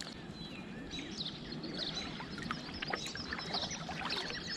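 Birds chirping with many short, quick calls over a low steady rumble, with a few faint clicks.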